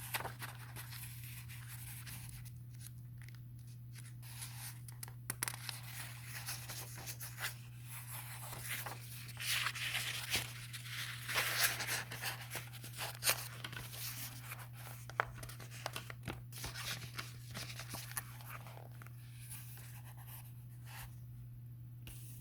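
Faint rustling and small clicks of handling, busiest in the middle, over a steady low electrical hum.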